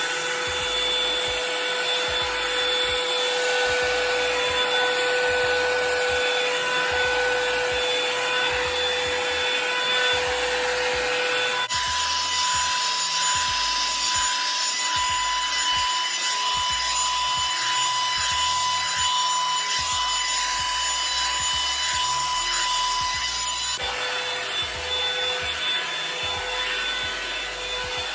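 Revlon hair dryer brush running steadily, a rushing blow with a motor whine; the whine jumps to a higher pitch about twelve seconds in and drops back near the end.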